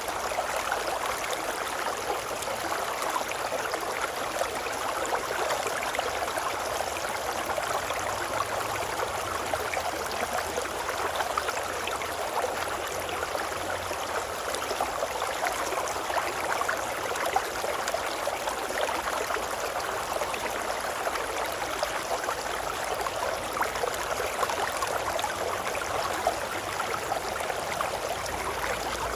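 River water babbling and rushing steadily, an even, unbroken flow with a constant fine burble.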